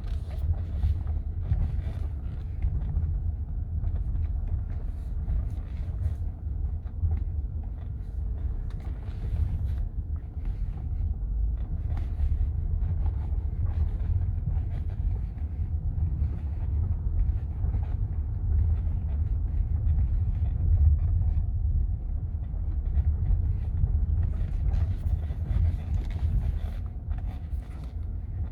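2013 Audi A6 C7 on the move, a steady low rumble with short creaks at irregular moments from the left front suspension. The creak shows up only when the car is cold.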